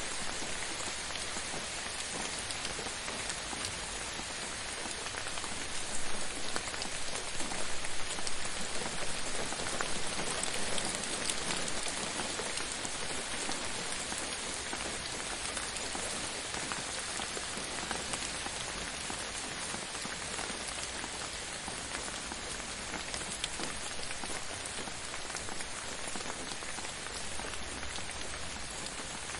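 Steady gentle rain falling on a surface, an even hiss full of fine drop ticks, swelling slightly a few seconds in.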